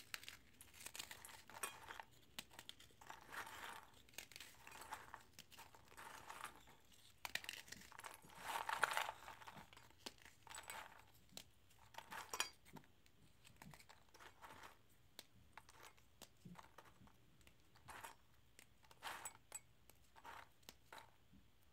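Oreo cookies being broken apart by hand in a stainless steel bowl: faint, intermittent crunching and snapping of the biscuit pieces.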